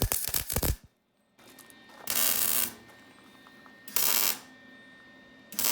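Electric welder arc firing in short bursts: a crackling burst at the start, then three separate half-second bursts of arc hiss about two, four and five and a half seconds in. The welder is tacking metal onto a snapped bolt in the engine block to build up a nub to grip for extraction.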